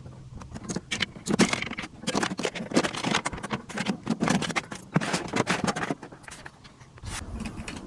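Wiring being handled and pulled through plastic car trim: a rapid, irregular run of clicks, rustles and scrapes that thins out and gets quieter near the end.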